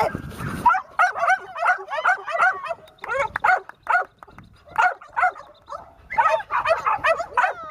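A puppy giving short, high barks and whines in quick runs with brief pauses.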